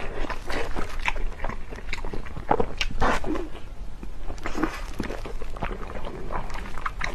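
A person chewing food close to the microphone: irregular mouth clicks and smacks.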